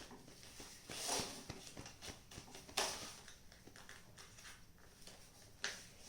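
Paper rustling and creasing as a folded sheet is handled and pressed flat, in three short crinkling swishes: about a second in, near three seconds and near the end.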